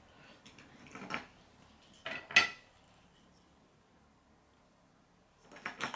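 Hard plastic K'nex rods and connectors clicking and clacking together as they are handled, with sharp clicks about a second in and around two seconds in, a quiet spell, then more clattering near the end.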